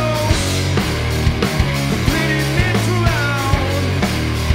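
Live rock band playing: two electric guitars, electric bass and a drum kit together, with regular drum hits.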